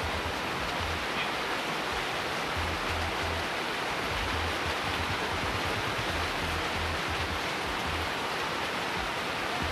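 Background music with a low bass line, over a steady hiss.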